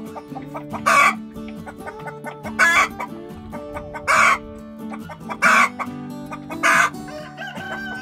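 Hens clucking, with five loud, short squawks spaced about a second and a half apart, over background music of steady held notes.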